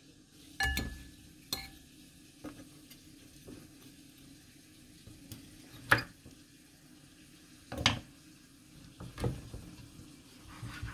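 Knife cutting through oven-roasted pork belly with crisp crackling skin on a cutting board: scattered sharp knocks and crunches, the loudest about six seconds in. A short ringing clink comes near the start.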